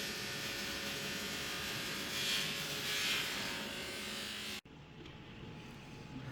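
A steady electric buzz with a faint hum, which cuts off abruptly about four and a half seconds in, leaving quieter room sound.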